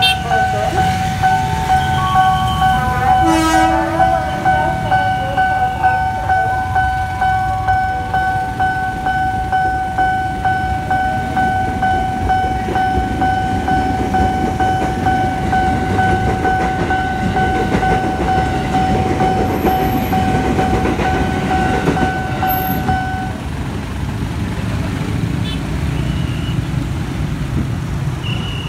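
Level-crossing warning alarm sounding a steady electronic tone while a JR 205 series electric commuter train rumbles past. The alarm cuts off suddenly about 23 seconds in, once the train has cleared, leaving the rumble of waiting motorcycles and traffic.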